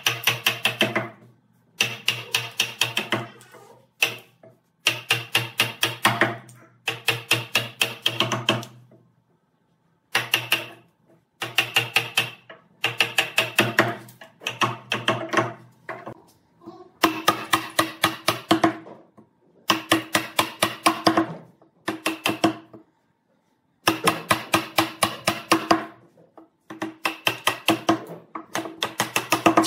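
Wooden mallet hammering a chisel into a clamped wooden beam, chopping out a notch: quick runs of several blows each, with short pauses between runs. Each blow rings with a hollow, pitched note from the wood and bench.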